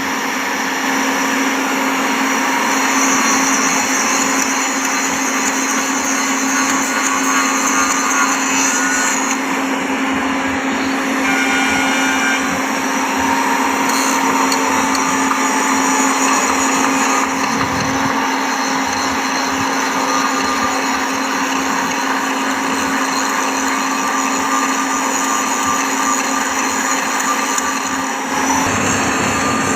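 Power grinder running continuously on a steel rail end, a steady hum under a wavering whine and grinding noise, dressing the joint before flash butt welding.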